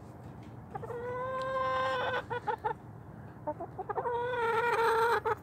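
Chicken hen calling twice: each call is one long, steady drawn-out note of about a second, trailed by a few quick short clucks.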